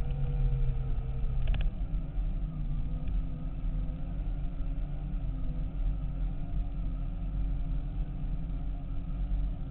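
Segway x2 riding over a rough dirt track: a steady rumble from the tyres and ground, with a faint whine from the electric drive whose pitch wavers up and down as the speed changes.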